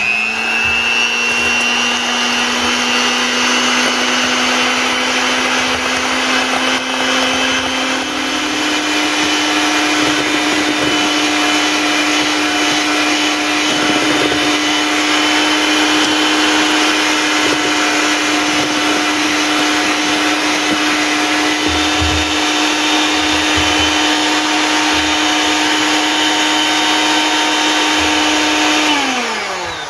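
Electric hand mixer running, its beaters whipping egg whites to stiff peaks in a stainless steel bowl. The steady motor hum steps up to a higher pitch about nine seconds in and winds down as the mixer is switched off near the end.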